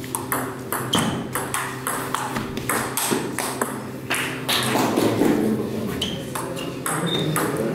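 Table tennis ball clicking sharply and irregularly as it is struck by the paddles and bounces on the table, in play and between points.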